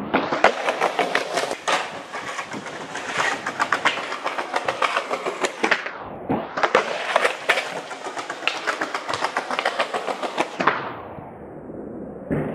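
Skateboard wheels rolling and rattling over rough pavement, with sharp clacks of the board popping and landing. There is a short break about six seconds in, then it starts again.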